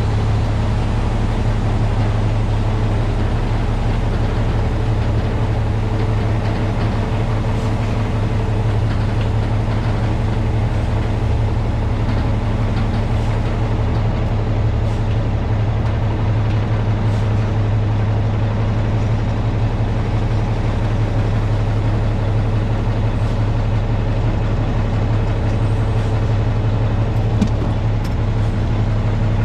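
Diesel semi truck engine running steadily with a low, even hum.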